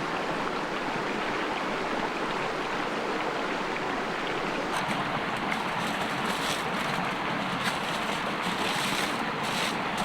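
Creek water rushing steadily over rocks, with scattered sharp crackles and clicks from about five seconds in.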